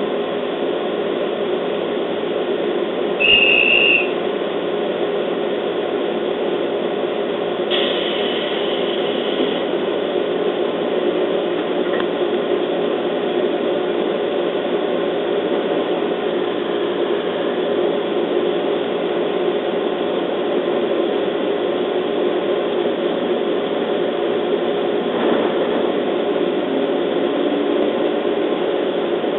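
Steady hum of a stationary JR 211 series electric train's onboard equipment, heard from inside the car. A short, loud high beep sounds about three seconds in, and a fainter high tone lasts about two seconds around eight seconds in. Near the end a low tone slides in as the train begins to pull away.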